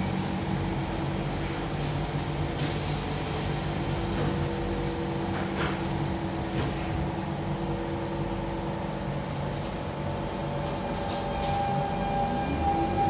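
Inside a Siemens C651 metro car at a station: a steady hum of air conditioning and equipment, with a sharp thud about two and a half seconds in as the sliding doors close. Near the end a rising whine starts from the GTO-VVVF traction inverter and motors as the train begins to pull away.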